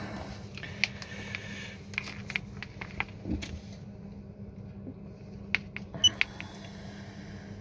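Handheld battery tester being operated: light clicks and handling knocks as its buttons are pressed and its clamp leads are moved, with one short electronic beep about six seconds in. A steady low hum runs underneath.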